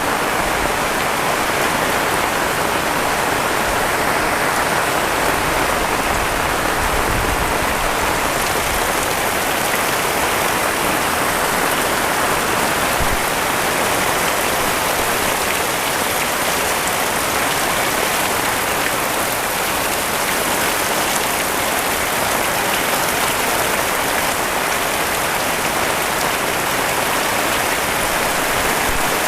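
Heavy rain falling hard and steadily, a dense, unbroken hiss of drops with a few brief low rumbles.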